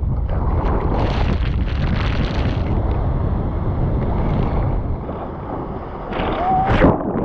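Shore-break waves crashing and whitewater rushing over an action camera at water level, a heavy rumble of water and wind noise on the microphone. Near the end, a brief vocal cry and a sharp splash.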